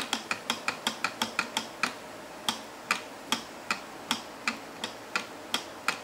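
LEGO Technic gear mechanism of a puzzle box clicking as the gears are turned by hand. A quick run of sharp clicks, about six a second, then slower clicks about two or three a second.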